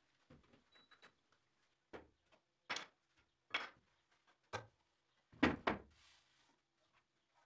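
Wooden boards or furniture parts knocking and clunking as they are handled, about six separate knocks at uneven intervals, the loudest a heavy double knock about five and a half seconds in.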